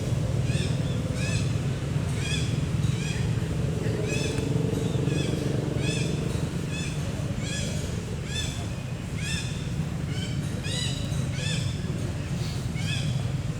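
Short high-pitched chirping calls repeated about twice a second, each arching up and falling, over a steady low rumble.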